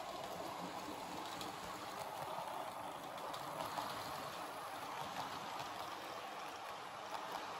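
Model electric train rolling along the layout's track: a steady rushing rumble of wheels on rails and motor, with a few faint clicks.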